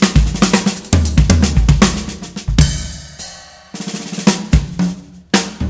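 Background music: a drum-kit beat of kick, snare and hi-hat played fast, with a cymbal crash about two and a half seconds in that rings out before the beat picks up again.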